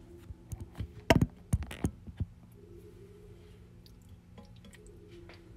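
A quick run of sharp knocks and clinks of kitchen dishware about a second in: a glazed ceramic soup bowl being handled and set down, and a ladle against dishes as soup is about to be served. A faint steady low hum runs underneath.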